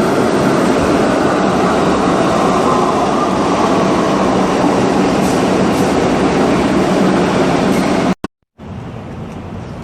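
Subway train ride heard from inside the car: a loud, steady rumble with a whine that slowly falls in pitch. It cuts off suddenly about eight seconds in, giving way to a quieter steady background noise.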